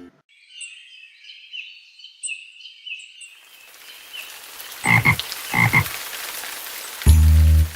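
Sound effect of frogs croaking in a chorus of short repeated calls, giving way about three seconds in to the steady hiss of rain, with two louder double sounds partway through. Music with a strong bass line starts near the end.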